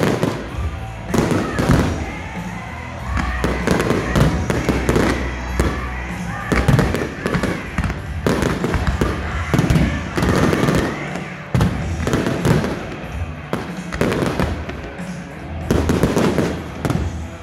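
Aerial fireworks shells bursting in a dense, rapid run of bangs during a finale, over music played through the show's sound system.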